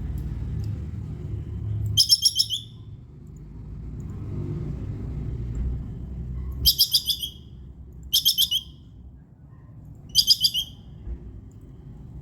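Squirrel giving its chattering 'kekes' call: four short bursts of rapid, high-pitched chips, each about half a second long and a few seconds apart, over a low rumble.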